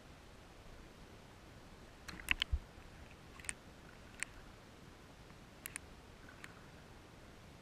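Small water ripples slapping and ticking against a GoPro camera held at the water surface: scattered sharp clicks, a quick cluster with a soft knock about two seconds in, over a faint steady hiss.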